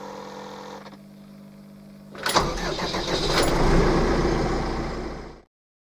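Deutz-Fahr tractor's diesel engine starting about two seconds in, after a low steady hum, then running loudly and fading away shortly before the end.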